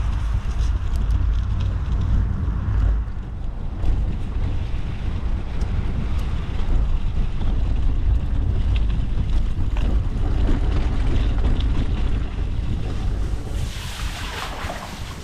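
Steady low rumble and wind buffeting on the microphone of a small vehicle moving over rough, bumpy ground. A brighter hiss rises briefly near the end, then the level drops.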